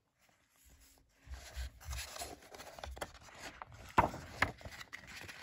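Pages of a hardcover picture book being handled and turned: low rustling and rubbing of paper and hands, with two sharp paper snaps about four seconds in.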